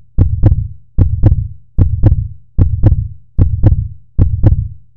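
Heartbeat sound effect: paired lub-dub thumps at a steady pace, about one heartbeat every 0.8 seconds, six in all.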